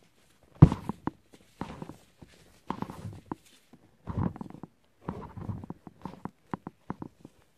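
Dry, unsoaked floral foam crunching and crackling as fingers press and squeeze into a pile of crushed foam crumbs. The crunches come about once a second, the loudest about half a second in, with a quick run of sharper crackles near the end.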